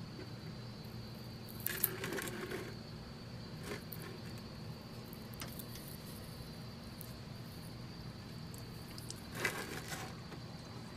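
Hands working under a car at the oil filter: two short rustles or scrapes, about two seconds in and near the end, with a few faint clicks between, over a steady low hum.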